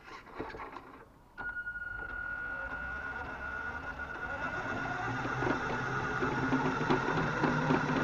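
Small electric motor and drivetrain of a radio-controlled model Mini Cooper S. A few clicks come first, then about a second and a half in it starts running with a steady high whine over a busier mechanical rattle that swells and eases.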